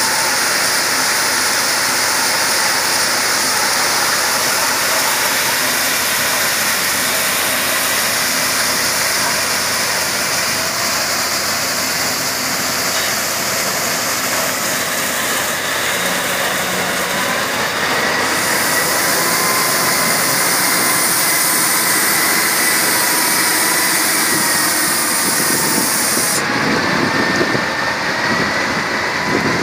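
Automatic truck wheel wash: many high-pressure spray nozzles hissing hard against a dump truck's wheels and chassis, over the truck's diesel engine running as it creeps through. The hiss thins out a few seconds before the end.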